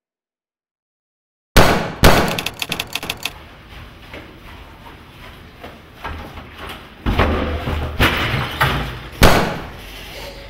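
Glass breaking in a sudden loud smash after dead silence, with a quick rattle of falling pieces, then four more heavy blows near the end, each ringing out.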